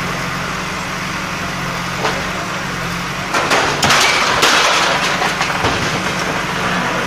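Backhoe loader's diesel engine running steadily. From about three and a half to five seconds in comes a loud clattering crash as corrugated roofing sheets are pulled down.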